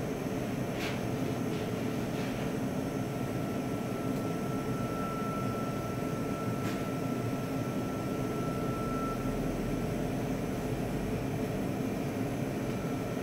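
Steady mechanical hum, with a faint high whine for several seconds and a few light clicks or knocks.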